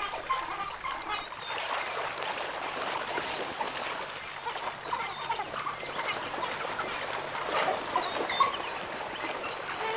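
African wild dogs splashing and wrestling through shallow water, with many short, high-pitched chirping calls from the pack.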